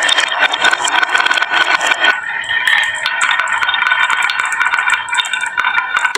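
Many marbles rolling and clattering down a wooden marble run, a dense, continuous rattle of small clicks.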